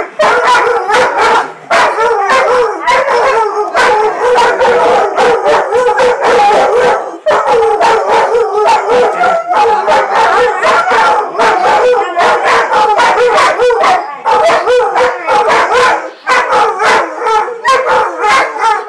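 Several German Shorthaired Pointers howling together, their loud overlapping howls wavering up and down in pitch without a break.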